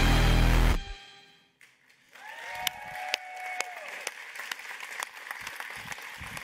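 Loud electronic reveal music cuts off about a second in. After a short lull, an audience applauds with some cheering, and the clapping continues steadily.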